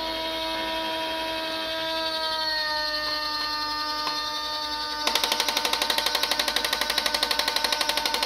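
Electronic sound effects from a customized Geyperman toy military truck: a steady pitched hum, then from about five seconds in a rapid stutter of about twelve sharp pulses a second, like a toy machine-gun effect, which cuts off suddenly.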